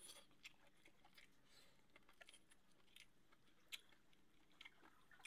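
Faint close-up chewing and mouth sounds of a man eating rice with his fingers: soft, irregular little clicks, one a bit louder about three-quarters of the way through.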